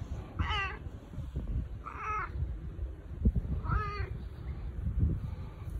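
Stray cat meowing three times in short, husky, wavering calls while being stroked: attention-seeking, affectionate meows.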